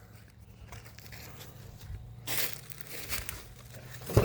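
Rustling and crinkling handling noise, with a short rustle about two seconds in, a few small clicks, and a brief louder sound near the end.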